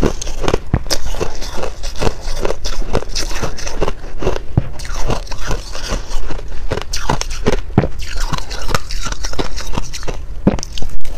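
Shaved ice crunching as it is eaten: a dense, irregular run of crisp crunches, several a second, from ice being bitten and chewed and from a metal spoon digging into a tub of shaved ice.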